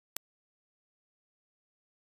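Near silence, broken by one short, sharp click just after the start.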